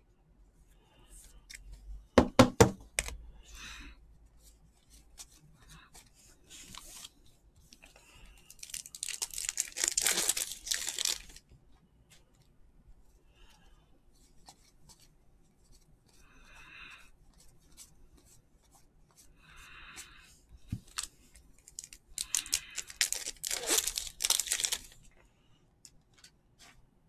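Trading-card foil packs being torn open, with crinkling wrapper noise in two longer bursts, one in the middle and one near the end. A quick cluster of sharp knocks about two seconds in.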